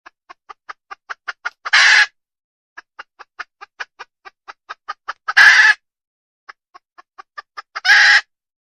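Desi hen cackling: runs of short clucks at about five a second, each ending in a loud drawn-out squawk, three times over.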